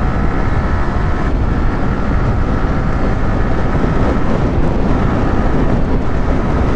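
Yamaha R15 V3's 155 cc single-cylinder engine running steadily at highway cruising speed, about 80 to 97 km/h, mixed with wind rush over the rider's microphone.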